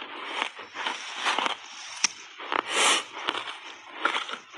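Refrozen ice, coated in matcha powder, being crunched between the teeth: irregular crunches about two a second, with a sharp crack about two seconds in and the loudest crunch a little later.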